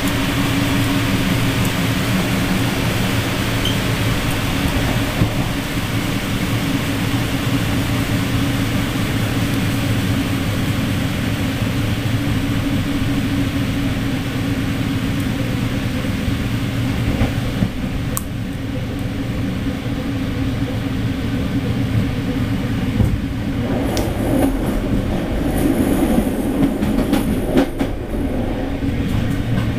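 A passenger train running on the rails, heard from inside a carriage: a steady rumble and rail hiss with a low hum. A few sharp clicks come in the second half, and the hiss eases off a little after about eighteen seconds.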